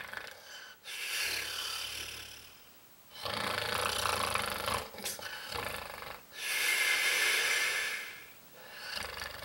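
A man snoring in his sleep: a string of slow, rasping breaths, several with a low buzzing snore and a long hissing breath out in the second half.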